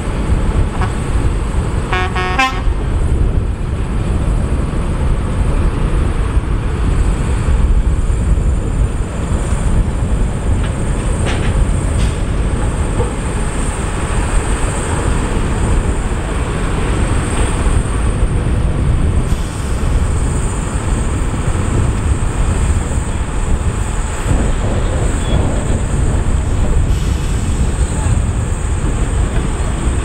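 A heavy dump truck's diesel engine running with a steady low rumble, with a short horn toot about two seconds in.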